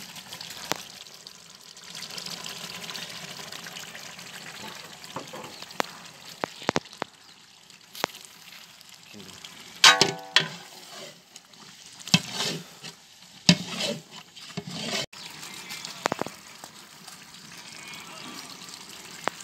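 Chicken masala sizzling and bubbling in a large aluminium biryani pot, with a long metal ladle stirring and knocking against the pot a few times from about halfway through, the loudest knock ringing briefly.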